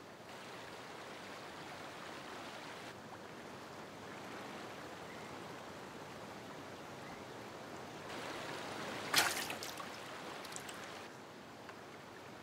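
River water rushing steadily below a cliff, its level shifting a little a few times. A brief, louder sharp burst of noise comes about nine seconds in.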